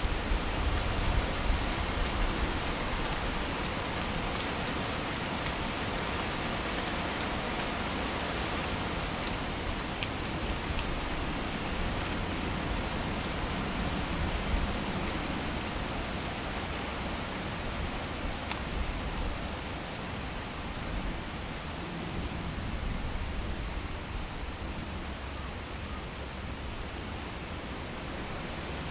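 Wind rustling through the leaves of autumn trees, a steady hiss, with gusts buffeting the microphone as a low rumble in the first couple of seconds. A few faint ticks sound through it.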